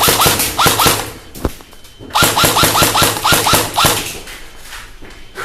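Airsoft electric gun firing rapid full-auto bursts, the mechanism cycling in a fast clatter: one burst at the start and a longer one about two seconds in.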